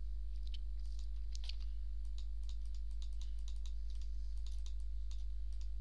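Irregular light clicks of a computer mouse and keyboard over a steady low electrical hum.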